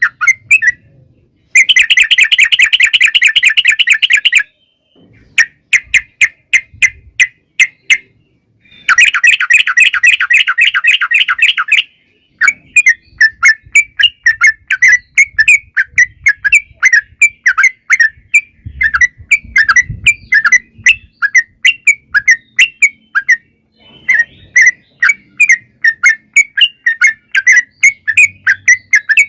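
Yellow-vented bulbul (trucukan) singing loudly. Two long bursts of very fast rattling trill stand out, one near the start and one about a third of the way in. Between and after them come runs of quick, separate chirped notes, several a second.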